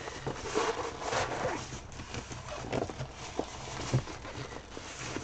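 Diamond painting canvas in its plastic film rustling and crinkling as hands roll it up tightly, with a few sharp ticks.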